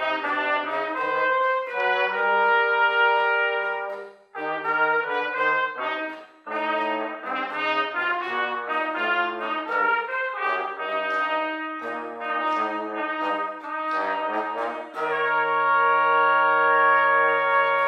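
Two trumpets and a trombone playing a slow brass piece in held chords, phrase by phrase, with two short breaks in the first third. A long sustained chord begins about three seconds before the end.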